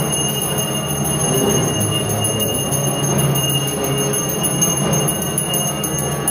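Harmonium playing held notes and chords, with steady high ringing tones above it.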